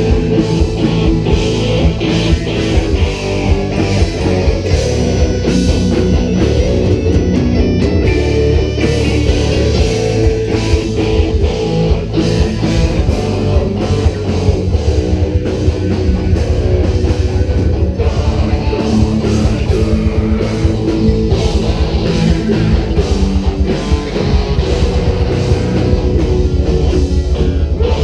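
Heavy folk-metal music played by a band, with electric guitars and bass guitar over a drum kit, running loud and without a break.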